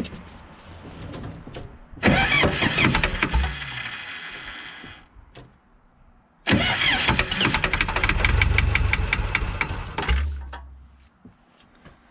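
Starter cranking a 1968 Case 580CK tractor's 188 diesel engine in two bursts of about three and four seconds with a short pause between. Each burst stops sharply and the engine does not keep running. This is a start attempt on an engine with a suspected fuel starvation problem.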